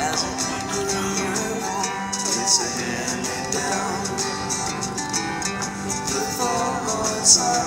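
Music: a song with guitar and a singing voice over a steady beat.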